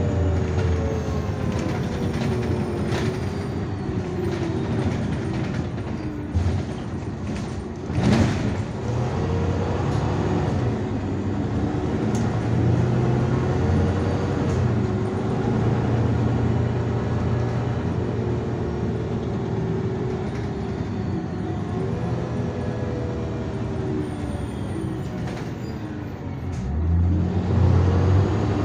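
IVECO Urbanway 12M city bus heard from inside the passenger cabin while driving: the engine and drivetrain run with a low hum and a whine that rises and falls several times. A single sharp knock comes about eight seconds in, and the engine pulls louder near the end.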